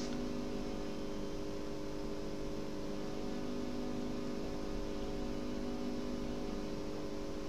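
Steady electrical background hum with several held tones, unchanging throughout.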